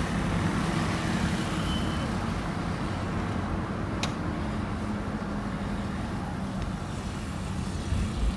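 Steady road noise heard from inside a moving car: engine and tyre rumble with a low hum. One sharp click about four seconds in.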